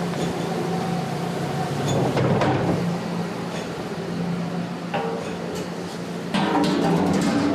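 Dishwasher running: a steady motor hum under a wash of spraying water.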